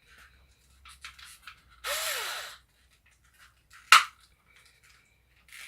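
Small clicks and knocks of the plastic housing being handled and fitted back together, with a sharp loud click just before four seconds in. About two seconds in, a brief noisy sound rises and falls in pitch.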